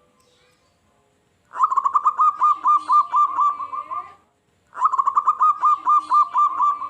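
Zebra dove (perkutut) singing: two phrases of quick staccato cooing notes, about five a second, each phrase lasting about two and a half seconds, with a short pause between them.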